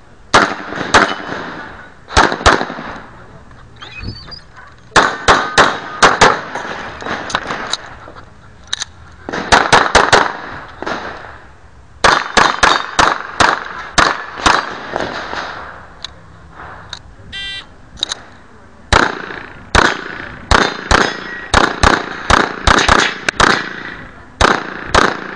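9mm handgun fired in quick strings of several shots, with pauses of a few seconds between strings. A short electronic beep sounds about two-thirds of the way through.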